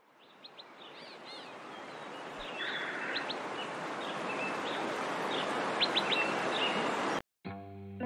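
Birds chirping over a steady rushing noise that fades in gradually, cut off abruptly about seven seconds in; electric guitar music starts right after.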